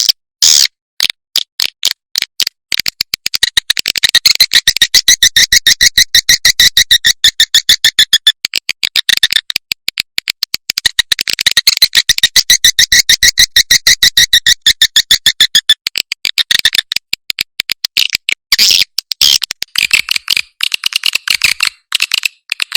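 Edible-nest swiftlet call recording of the kind played to lure swiftlets into a bird house: rapid trains of sharp, high chirps and clicks, densest in two long runs of several seconds each, with sparser chirps before, between and after.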